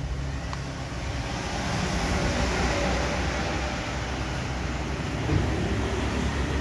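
Steady low rumbling vehicle noise.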